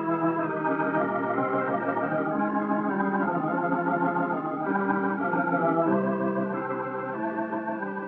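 Soundtrack music of sustained, held chords that shift every second or so.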